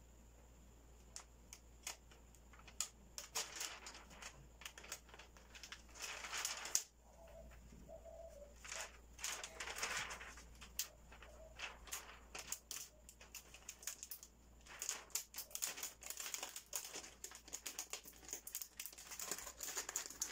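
Thin protective plastic film crackling and crinkling as it is peeled off a new computer monitor's screen, with many scattered sharp crackles and a few longer rustles.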